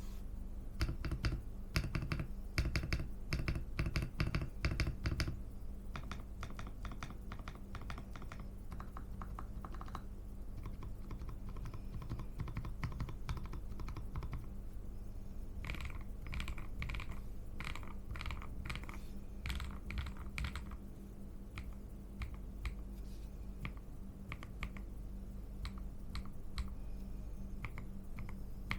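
Typing on a Zouya GMK67 gasket-mount mechanical keyboard with a polycarbonate plate, Akko Cream Yellow switches and XDA-profile keycaps: runs of keystroke clacks. The typing is fastest and loudest in the first few seconds, then comes in lighter bursts with short pauses.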